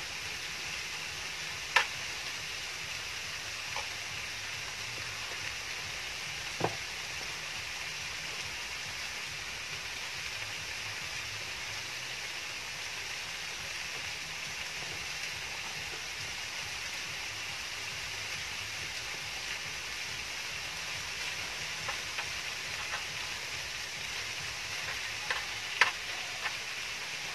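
Chicken and kimchi fried rice sizzling steadily on a round grill pan over a portable gas stove, with a few sharp clicks of chopsticks and a spoon against the pan as the food is stirred.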